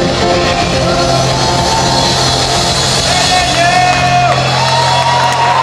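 A live rock band holding its closing chord over a steady bass note, with shouts and whoops from the crowd in the second half.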